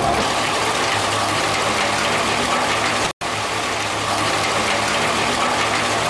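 Disc wood chipper running and blowing a stream of wood chips out onto the pile: a dense, steady rush of noise with a fine rattle of chips over a low machine hum. The sound cuts out for an instant about three seconds in.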